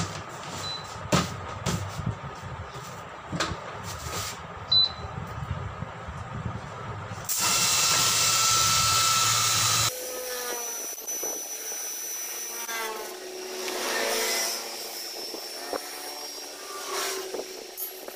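Compressed air hissing loudly for about two and a half seconds as the tyre on the changer is inflated through an air-line chuck. Before it there are scattered clicks and knocks of tyre-fitting work.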